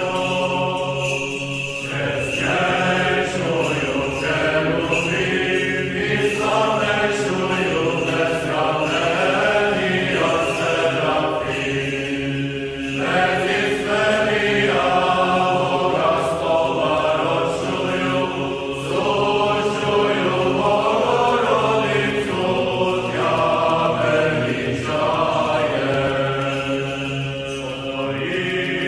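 Chanted vocal music: several voices singing a slow, drawn-out melody over a steady held low note.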